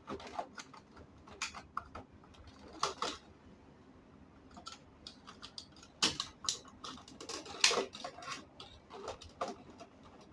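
Scattered clicks and taps of hand work on circuit breakers in an electrical panel, plastic and metal knocking as breakers and tools are handled, with a busier run of louder clicks about six seconds in.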